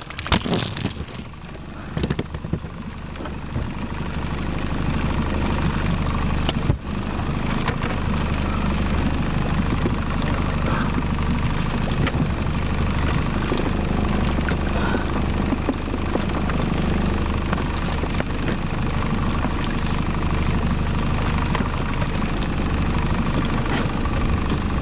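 Evinrude outboard motor running, a steady low hum under a broad rush of wind and water. It builds over the first several seconds and then holds steady. A few knocks from the camera being handled come near the start.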